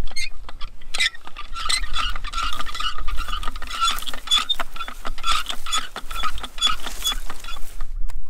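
Hand-cranked electric-fence reel winding in polywire, making a rapid run of clicks with a whir as it turns; the cranking stops near the end.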